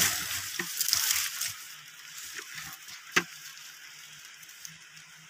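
Metal digging bar jabbing and scraping into dry soil and roots, with earth crumbling and crackling, busiest in the first two seconds. A single sharp knock comes about three seconds in.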